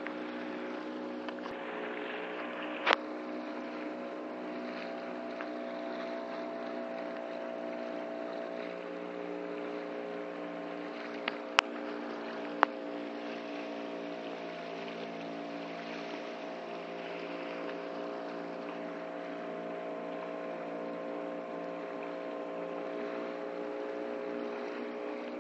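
Small engine of a wooden outrigger boat running steadily. Sharp clicks cut through about three seconds in and twice more around twelve seconds.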